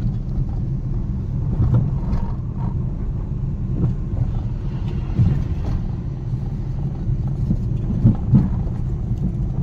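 Steady low rumble of a car's engine and tyres heard from inside the cabin while driving, with a few brief bumps.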